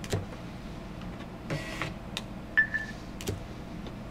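Small label printer briefly running as it prints a label, about one and a half seconds in, followed about a second later by one short high beep, part of a repeating cycle as plant tags are scanned one after another. A few light clicks of tags being handled.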